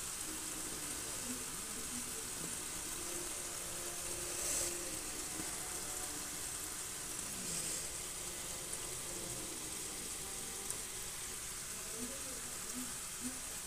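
A steady hiss of background noise, with faint voices in the background.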